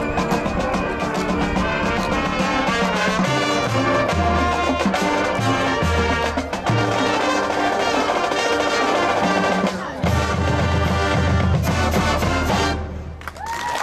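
High school marching band playing: brass over low bass notes with drumline percussion. The music cuts off about a second before the end.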